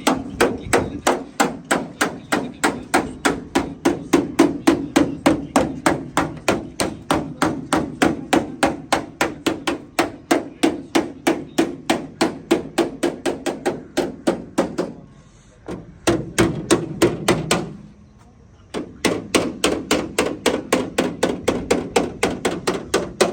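Hammer beating out dents in a car's sheet-metal body panel: a fast, steady run of sharp strikes, about three or four a second, with a short ring to each, pausing twice briefly near the end.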